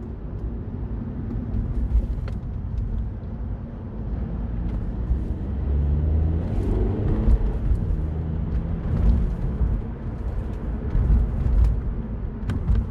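Mini Cooper Cabrio's engine and tyre rumble heard from the cabin while driving. The engine note rises in pitch for a couple of seconds near the middle as the car accelerates, and there are occasional light clicks.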